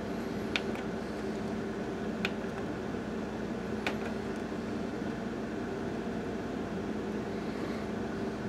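Sharp XV-Z2000 DLP projector running with a steady hum from its cooling fans and spinning colour wheel. Three sharp clicks about one and a half seconds apart, from buttons on its top control panel being pressed.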